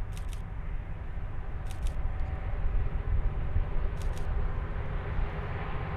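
Low rumble of a train's diesel locomotives, growing louder toward the end as the train approaches.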